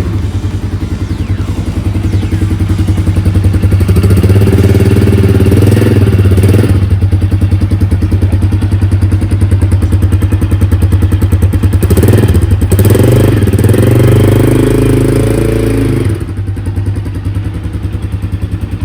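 Vento Rocketman 250 motorcycle engine running through its stock factory exhaust with the silencer insert still in place: idling, revved up twice, about four seconds in and again about twelve seconds in, then settling back to idle.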